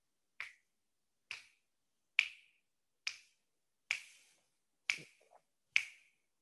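Sharp, evenly spaced clicks, a little faster than one a second, seven in all, each dying away quickly.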